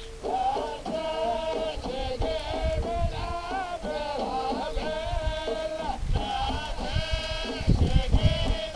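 A chorus of men chanting a traditional Gulf Arab sung dance, with long held, bending notes, playing through a flat-screen TV's speaker.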